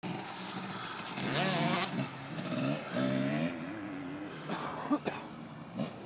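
Dirt bike engine on a motocross track revving up and down as the rider works the throttle, rising and falling in pitch, loudest about a second in and again about three seconds in.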